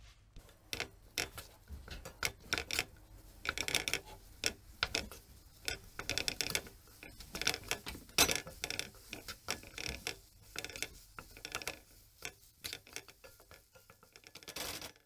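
Wooden spatula scraping and knocking against a non-stick wok while stir-frying egg fried rice: a fast, irregular run of clicks and scrapes, several a second.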